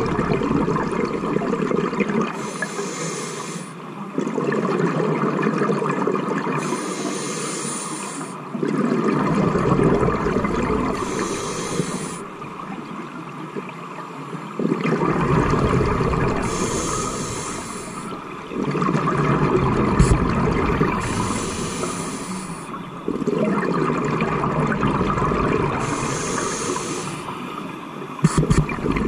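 A scuba diver breathing through a regulator underwater: each inhale is a hiss through the demand valve and each exhale a gurgling, rumbling rush of bubbles. About six breaths come, one every four to five seconds.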